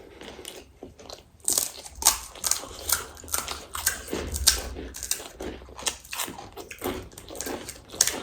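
Close-miked crunching and chewing of crisp snack food, quiet at first, then sharp crunches about twice a second from about a second and a half in.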